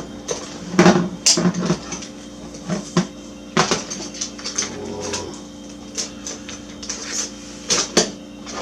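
Metal hand tools clinking and clattering as they are picked up and handled, in irregular sharp clinks, busiest in the first half.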